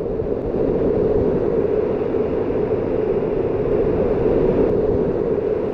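Waterfall pouring close by: a loud, steady rushing noise that stays even throughout.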